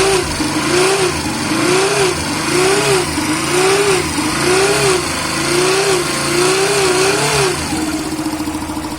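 Yamaha Factor 150 single-cylinder four-stroke engine revved in short repeated blips, about one a second, then settling to a steady idle near the end. It is run to show a characteristic abnormal engine noise that the mechanic traces to a faulty stator, a noise he says is easily mistaken for a crankshaft bearing.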